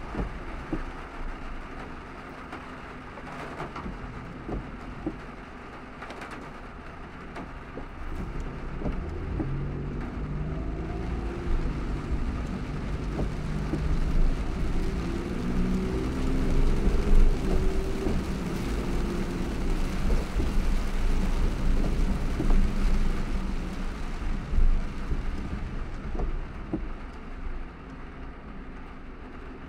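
A car driving through a heavy downpour: steady rain and road noise with scattered sharp ticks of drops. A louder vehicle rumble with shifting pitch builds about a third of the way in and fades near the end.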